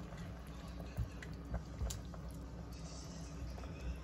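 Braising liquid simmering quietly in a nonstick pan, with a few light clicks of a spoon against the pan and gourd as dried scallop is spread over the fuzzy gourd.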